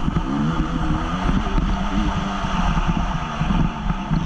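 A 2014 Honda CRF 250 motocross bike's single-cylinder four-stroke engine racing, its revs rising and falling with the throttle and gear changes, with wind buffeting the microphone.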